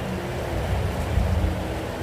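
Steady rain falling, with a low rumble underneath and a faint drawn-out hum.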